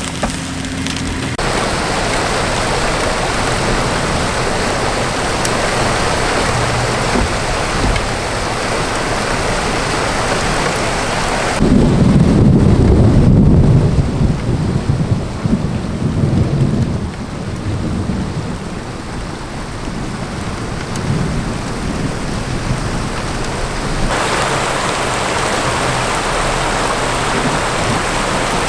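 Heavy rain in a thunderstorm, a steady hiss. About a third of the way in, a loud low rumble of thunder breaks in and dies away over several seconds, and the rain grows heavier again near the end.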